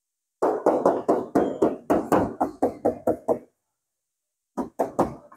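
Knuckles knocking on the sheet-metal body panels of a 1997 Daihatsu Espass van: a fast run of knocks, about four a second, for some three seconds, then after a pause a few more knocks near the end.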